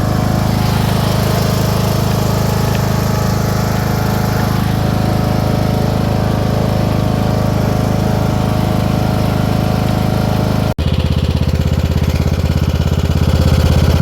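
A motor engine running steadily. It cuts off abruptly about three-quarters of the way through, and a deeper, evenly pulsing engine sound follows.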